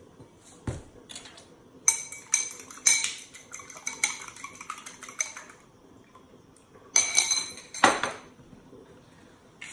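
Metal spoon clinking and scraping against a small ceramic bowl as beaten egg is scraped out of it into a glass mixing bowl. There is a single knock about half a second in, a run of quick clinks for about three seconds, and another short burst about seven seconds in.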